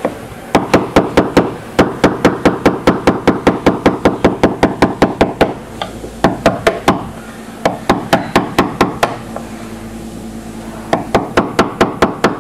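Rapid light taps, about five a second in runs with short pauses, as a flat-blade screwdriver chips old plastic weld away from a receptacle hole in an acrylic spa shell. The speaker calls them nice, gentle little taps.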